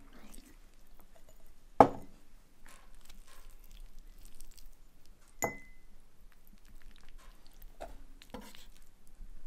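Canned salmon being handled on a wooden cutting board: a glass canning jar knocks down on the board about two seconds in, a second sharp clink with a brief ring follows a few seconds later, and between them come soft wet sounds of the skin being pulled off the fish.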